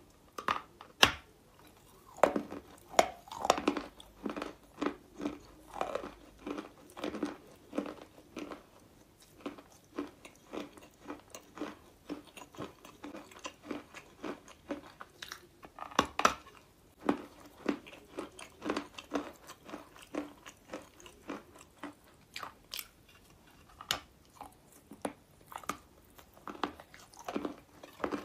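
Close-up crunchy biting and chewing of a large lump of eating chalk: a steady run of short crunches, several a second, with sharp snaps as bites break off, one about a second in and another about halfway.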